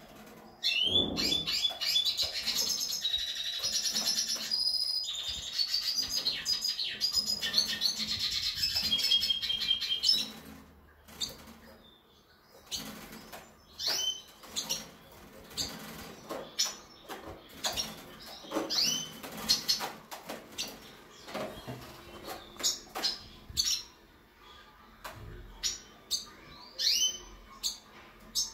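Red siskin singing: a fast, high twittering song for about nine seconds, then short chirps and calls at intervals.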